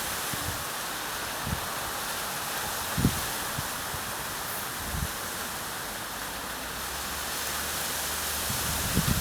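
Mountain wind blowing steadily with a rushing hiss, with a few low thumps of gusts buffeting the microphone and a low rumble building in the second half.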